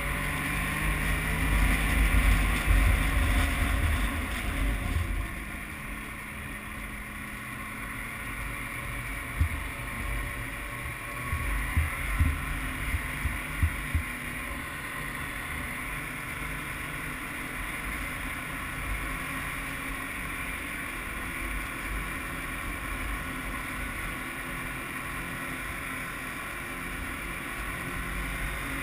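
Snowmobile engine running while riding, louder and rougher for the first few seconds and then a steadier drone, with a few sharp knocks about a third of the way through.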